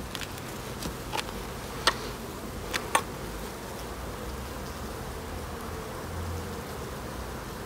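Honeybees buzzing around an open hive, a steady hum. A few sharp clicks between about one and three seconds in, as a metal hive tool knocks against the wooden frames.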